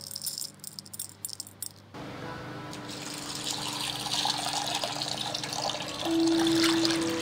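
Dried split yellow peas pattering into a glass bowl for about two seconds, then water poured from a glass measuring jug splashing onto the peas and filling the glass bowl, with a tone that rises slightly and grows louder near the end as the bowl fills.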